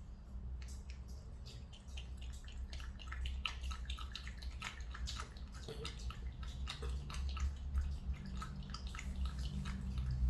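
Orange cat lapping water from a tub: a rapid run of loud, wet clicks, several a second, that sounds like a typewriter. The clicks grow thicker about two seconds in.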